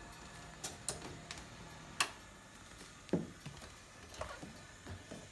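A few scattered light clicks and knocks, the sharpest about two seconds in, from handling silicone pinch grips on the stainless oven door handle.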